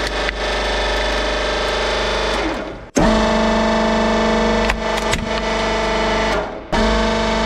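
Hydraulic press pump running with a steady, droning whine, cut off abruptly twice, with a few sharp clicks.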